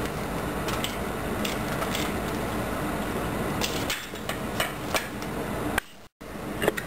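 Hand-cranked rotary cheese grater grating hard Parmesan-Romano cheese, a steady rasping with regular clicks as the crank turns, stopping about four seconds in. A few light clicks follow.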